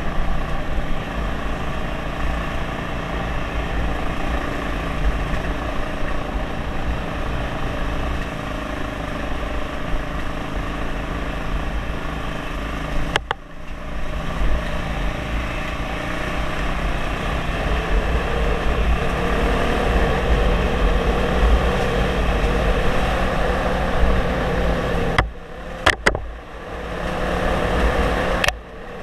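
Dirt bike engine running steadily while riding, with wind buffeting the microphone. The sound drops away briefly about 13 seconds in and twice near the end.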